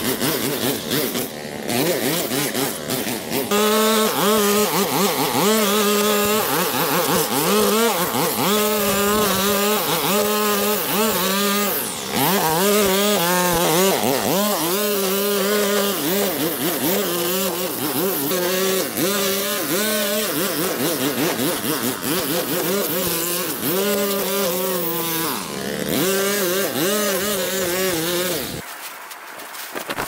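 A small gasoline engine of outdoor power equipment runs loud and steady, its pitch wavering as the load changes. It drops away a couple of seconds before the end.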